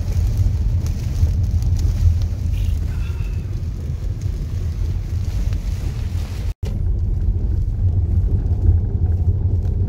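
Car interior noise while driving on a hail-covered road: a steady low rumble of engine and tyres, broken by a brief dropout about two-thirds of the way through.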